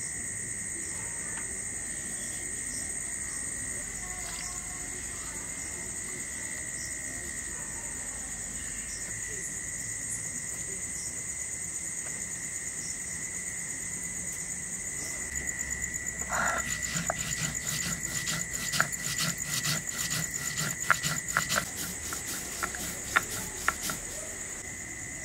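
Crickets chirping steadily in two high, continuous tones. From a little past the middle, a rapid run of sharp scratchy clicks comes from fish being worked by hand on a wooden cutting board.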